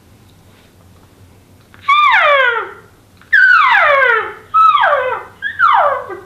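A hunter's elk call blown four times in cow-elk mews, each a short nasal call that slides down in pitch, spaced about a second apart.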